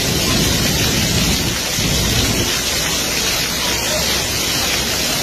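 Rows of dancing-fountain water jets spraying and splashing back onto wet paving: a steady, dense hiss of water with a low rumble underneath.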